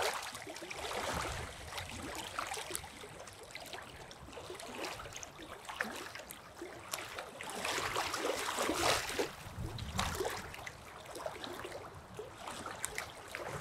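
Quiet outdoor background noise: a soft rustling hiss with many small clicks and taps, busier around the middle.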